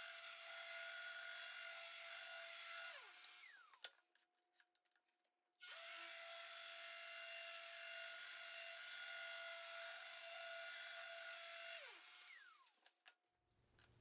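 Festool electric random orbital sander sanding a plywood panel, running with a steady, quiet whine. It is switched off about three seconds in and winds down, starts again just under six seconds in, and winds down again about twelve seconds in.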